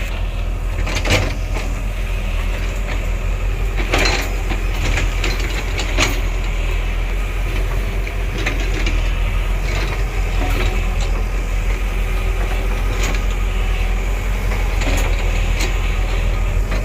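Heavy earthmoving machine's diesel engine running steadily with a deep rumble, with scattered metal clanks and knocks, the clearest about four and six seconds in.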